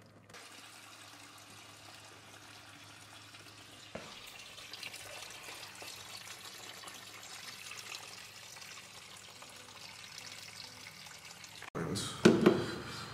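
Engine coolant draining from a BMW E30's radiator in a thin stream and splashing into a plastic tub below: a steady trickle. Near the end it gives way to a brief, louder knock and rattle.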